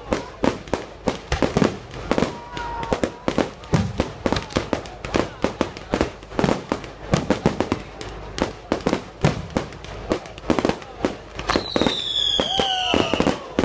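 Fireworks display: a rapid, continuous run of bangs and crackles from bursting shells, several a second. A falling whistle sounds near the end.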